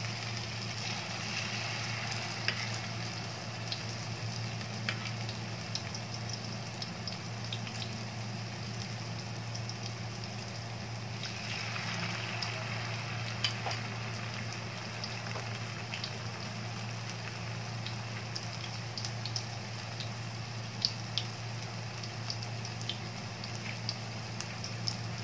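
Batter-coated banana pieces frying in hot oil in a pan: a steady sizzle with scattered small pops and crackles.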